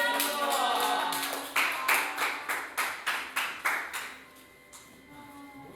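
Music: a dense, sweeping passage, then a run of sharp clap-like hits, about three a second for roughly two seconds, before it settles into a quieter held tone.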